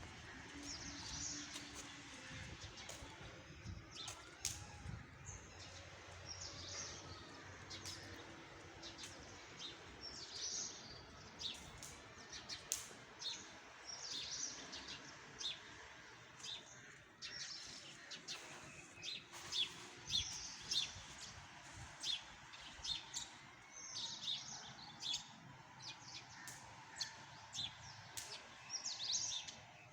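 Small birds chirping again and again, with frequent sharp clicks scattered through, over a faint background hiss.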